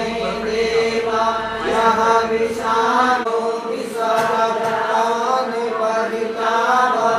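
Hindu mantra chanting: a voice reciting in phrases of a second or so over a steady held drone note.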